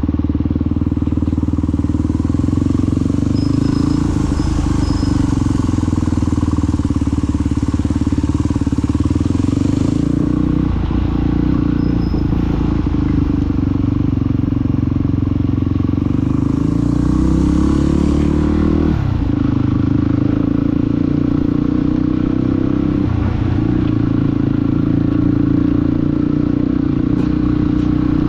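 Motorcycle engine running steadily while riding, its pitch drifting up and down with speed and shifting noticeably about two-thirds in, under a hiss of air and road noise that swells and fades.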